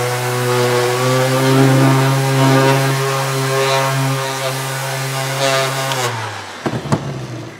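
Cordless random orbital sander running steadily against a black-painted aluminum angle strip, then winding down and stopping about six seconds in, followed by a few clicks and knocks as it is set down.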